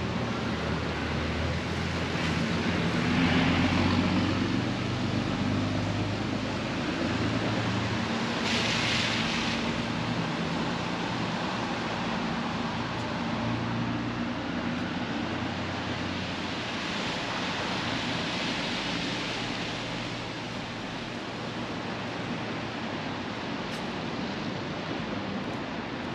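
Steady rain hiss in city streets over a low rumble of traffic and engines, with a louder hiss lasting about a second about nine seconds in.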